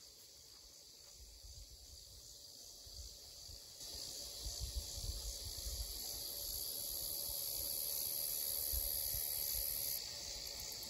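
A chorus of crickets chirring steadily and high-pitched, growing louder about four seconds in and dropping back near the end, over a faint low rumble.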